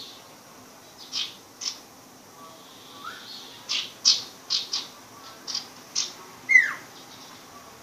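A young sirpu songbird practising its song: a scattered series of short, sharp chirps, ending about six and a half seconds in with a longer downward-sliding call, the loudest note.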